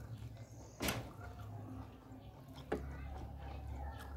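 Eating sounds from a person eating beef ribs and rice by hand: a sharp wet smack about a second in and a smaller one near three seconds, with faint mouth and finger clicks between, over a low steady hum.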